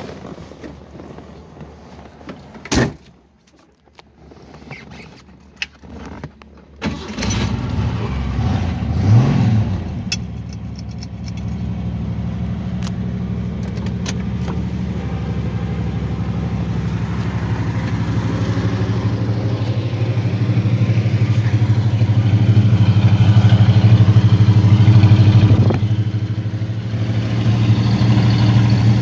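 1967 Ford Mustang's 200 cubic inch inline six, fitted with headers and dual exhaust, starting about seven seconds in after a sharp click. It revs briefly, then settles to a steady idle that grows louder over the second half.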